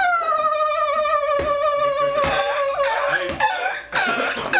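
A person's voice holding one long high note for about two seconds, sliding slightly down in pitch, then breaking off into a jumble of voices.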